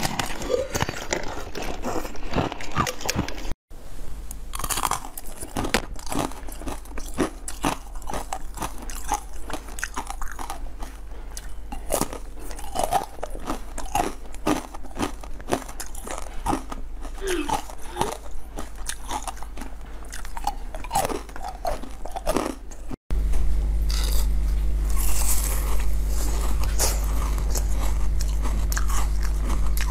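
Close-miked crunching bites into frozen jelly and ice cubes, with irregular sharp cracks between stretches of chewing. A steady low hum runs under the last several seconds.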